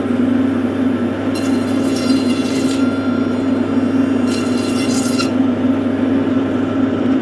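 Steady, loud engine drone with a strong low hum, and two short stretches of added hiss about a second and a half in and again near four and a half seconds.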